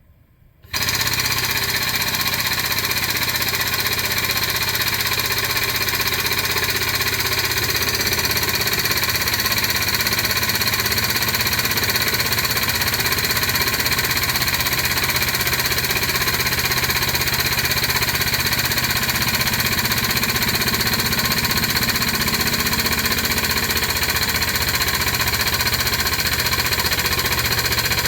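The hydraulic pump driving the nut-torquing fixture starts about a second in and runs loud and steady, building pressure toward about 1,500 psi on the gauge to torque the nut.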